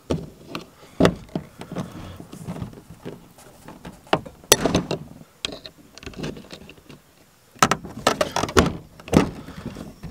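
Hand pop-rivet tool worked to set 3/16-inch rivets through a plastic light backing plate into the camper's plastic wall, giving a series of sharp clicks and clacks. They come in clusters about a second in, about four and a half seconds in, and again from about seven and a half to nine seconds in.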